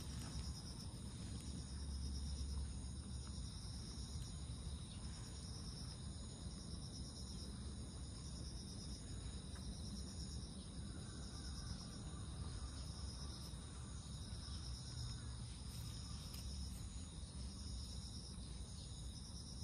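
Crickets and other insects chirping steadily, in several high pitches at once.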